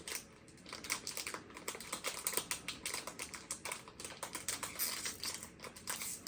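Stiff plastic toy packaging being handled and picked at by fingers: a rapid, irregular run of small clicks and crackles as someone struggles to open it.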